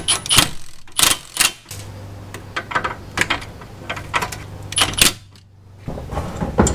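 Ratchet and socket clicking and clinking irregularly as the castle nut on a new outer tie rod end is run down snug, with metal-on-metal taps between the ratchet strokes.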